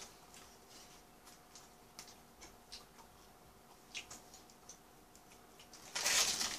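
Faint scattered clicks and small handling noises of eating over a steady faint hum; about six seconds in, a short loud crinkle of the paper food wrapper as a hand reaches into the burger wrapping.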